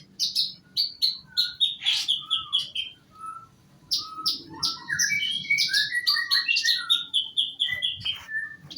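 A pastol songbird singing: a rapid string of short, high chirps with a brief pause partway through, then a denser, varied run of chirps and lower whistled notes.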